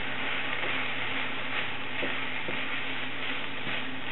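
Noodles and vegetables sizzling steadily in a hot pan as they are stir-fried, tossed with a wooden spatula, with a few light knocks of the spatula against the pan.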